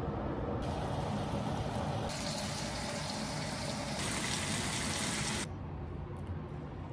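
Bacon strips sizzling in a frying pan, a steady hiss that grows louder in two steps and cuts off suddenly about five and a half seconds in.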